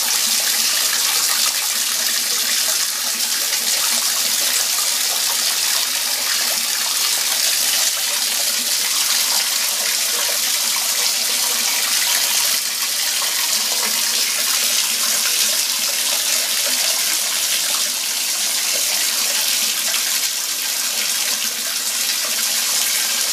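Bathtub tap running steadily, water pouring into the tub and across its floor toward the drain.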